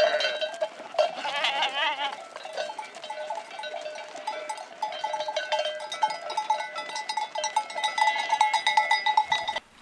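Bells on a herd of Moncaina goats clanking continuously and irregularly as the animals walk, with one wavering bleat about a second in. The bell sound cuts off abruptly near the end.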